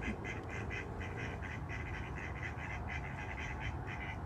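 A rapid, steady run of quack-like animal calls, about five a second, over a steady low hum.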